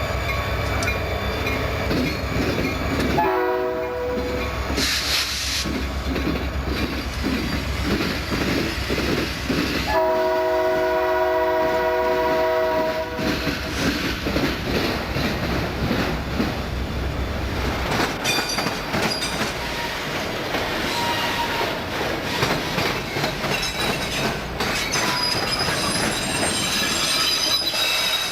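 Freight train passing with diesel locomotives. The horn sounds a short blast about three seconds in and a long blast from about ten to thirteen seconds, over the locomotives' rumble. Once the engines are by, the cars clatter over the rails, with wheel squeal near the end.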